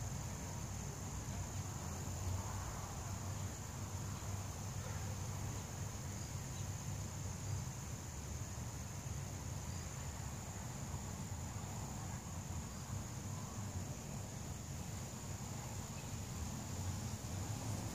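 Insects chirping in a steady, high-pitched chorus over a low, steady rumble.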